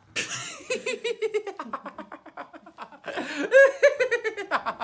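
A person laughing heartily: two long runs of quick, evenly spaced ha-ha pulses, the second, near the end, starting higher and falling in pitch as it trails off.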